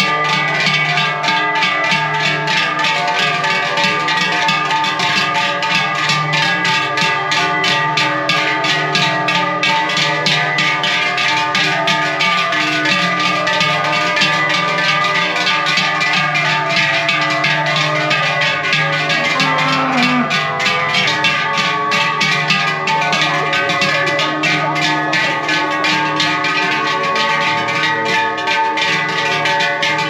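Many large cowbells clanging and ringing without pause as a herd of brown cows walks along. One cow lows briefly about twenty seconds in.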